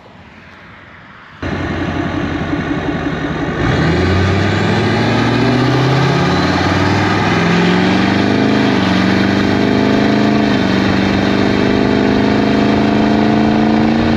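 A vehicle engine comes in suddenly and loud about a second and a half in, then accelerates. Its pitch climbs, dips back briefly at each gear change and climbs again, several times over.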